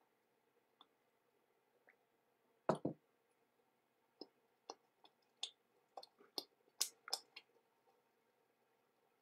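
Faint scattered clicks and knocks: a louder double knock about three seconds in, then a run of about ten sharp clicks over the next few seconds.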